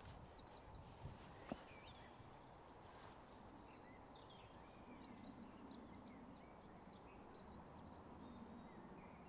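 Faint chorus of small songbirds, many short overlapping chirps and trills, from birds that include a dunnock, blackbird, robin and wren, over a low outdoor hiss. A small click about a second and a half in.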